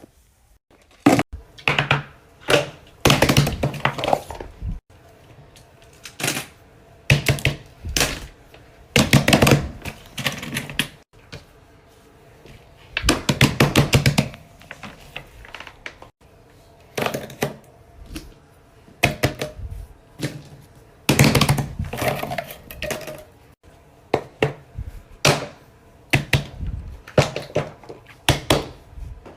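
Plastic fidget toys, simple dimples among them, clicking and clattering as they are handled and put away, in repeated bursts of rapid clicks with short pauses between.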